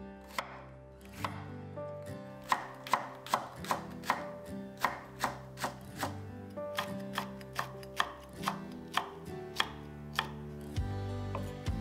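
Kitchen knife slicing onion, green onion and green chili pepper on a wooden cutting board: a run of crisp chops, about two to three a second, over soft background music that grows louder near the end.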